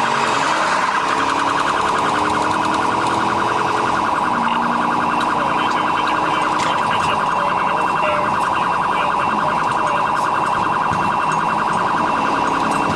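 Police car siren sounding a fast, steady warble.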